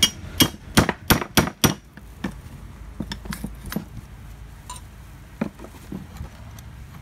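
Hammer striking metal: a quick run of about six sharp blows in under two seconds, then lighter scattered taps and clinks. The rotor of a rotary hammer drill is being knocked loose from a tail bearing that is seized very tight.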